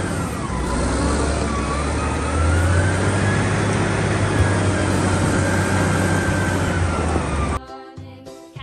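Large Caterpillar wheel loader's diesel engine working hard as it tips a bucket load of coal into a truck trailer: a heavy low rumble with a whine that drifts up and down in pitch. It cuts off suddenly near the end.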